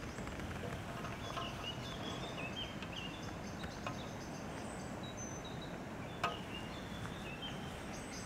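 Open-field ambience with small birds chirping now and then, and a single sharp click about six seconds in.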